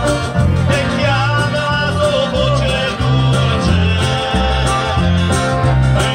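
Live music from a small group with accordions, playing a song over a steady, regular bass beat.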